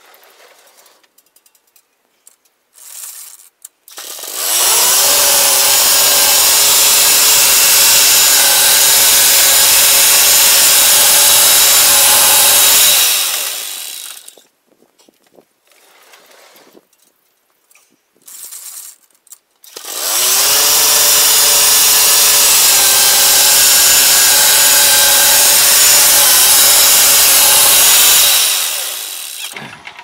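Homemade sawmill's engine-driven blade cutting through a hickory log, a loud, steady sawing drone. It comes in two passes of about nine seconds each, one starting about four seconds in and one about twenty seconds in, and each tapers off at its end.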